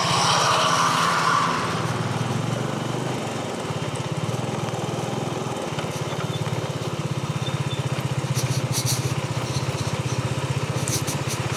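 Bajaj Dominar 400's single-cylinder engine running steadily on the move over a rough unpaved road, with a hiss of wind in the first couple of seconds. A few faint clicks about eight seconds in and again near the end.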